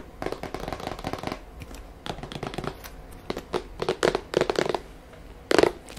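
Fingernails tapping and scratching on a cardboard box, in quick clusters of clicks, with one louder knock near the end.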